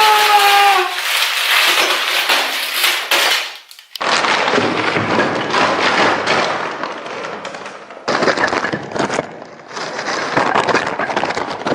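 Packaging crinkling and tearing as a giant surprise egg is unwrapped: a dense, irregular crackle, broken by edit cuts into several stretches.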